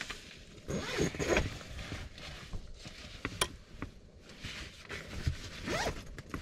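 Zipper on a rooftop tent's fabric window panel being pulled along in short rasping strokes, with a few sharp clicks in between.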